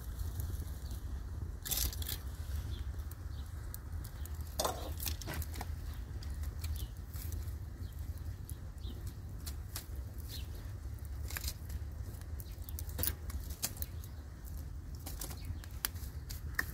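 Wood fire crackling with sharp pops and snaps over a steady low rumble, with a few louder knocks and rustles as dry sticks and branches are laid on it.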